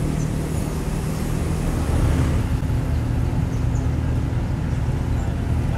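Diesel engine of heavy road-construction machinery running steadily, its low note shifting about two seconds in as the load or revs change.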